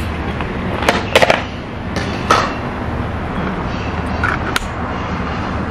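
Steady outdoor background rumble with a few sharp plastic clicks and rustles as a takeout salad bowl and its clear plastic lid are handled.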